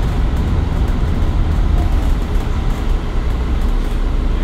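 2015 Nova Bus LFS city bus running on its Cummins ISL9 straight-six diesel: a steady low rumble.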